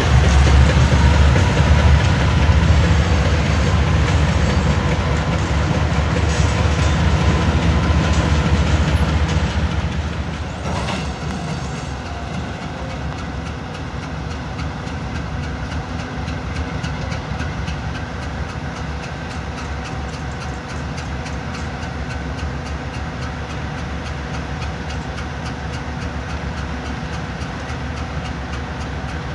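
Freight train of covered hopper cars rolling past with a heavy low rumble and wheel clatter. About ten seconds in this gives way to the steady, humming sound of a BNSF diesel locomotive standing and idling.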